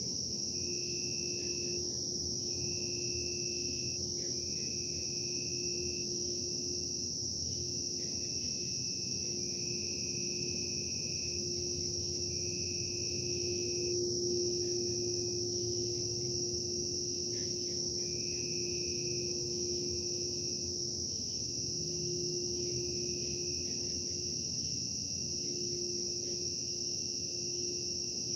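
Steady low machine hum and rumble, which the recordist calls industrial production noise, under a continuous high insect trill. A second trill breaks off and starts again every second or two.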